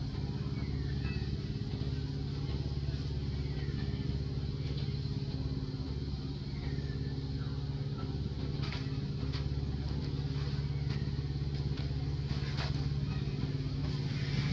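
A steady low engine drone, like a motor running nearby, holding one pitch throughout. Faint short chirps sound over it in the first half, and a few soft clicks come in the second half.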